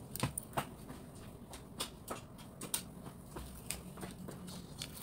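Scattered faint clicks and crinkles of a small packet being handled while it resists opening, over a steady low hum.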